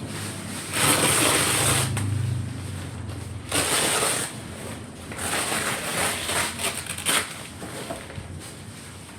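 Rustling and crinkling handling noise in several irregular bursts, with a sharp click about seven seconds in.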